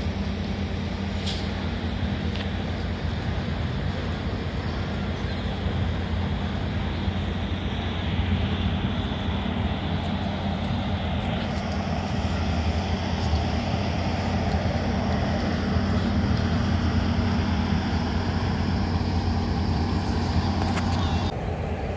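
Steady low hum of a train's diesel engine running, with a higher hiss joining about halfway through; the higher part cuts off abruptly just before the end.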